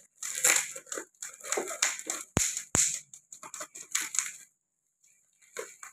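Utility knife slicing through packing tape and cardboard on a parcel, in short irregular scratchy strokes, with two sharp knocks about two and a half seconds in.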